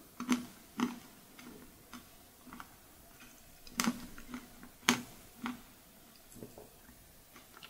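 Close-miked wet mouth clicks and lip smacks of someone eating a mouthful of perilla-leaf chocolate-chip ice cream, coming irregularly, with the sharpest ones near the start and about four and five seconds in.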